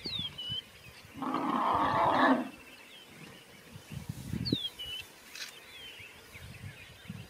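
An African elephant calls once, a loud, rough blast lasting about a second and a half, starting about a second in. A bird gives a short falling whistle twice, near the start and again about four and a half seconds in.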